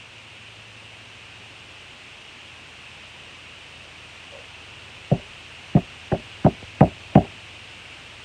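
Six sharp taps on a hard object in quick succession, about three a second, starting about five seconds in, over a faint steady hiss.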